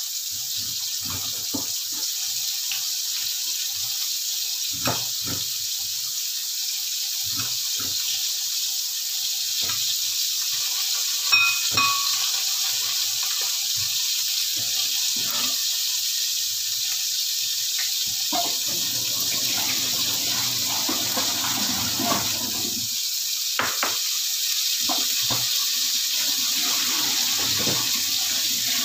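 Red snapper heads frying in hot oil in a wok: a steady sizzle with scattered pops and crackles. One short ringing click a little before halfway.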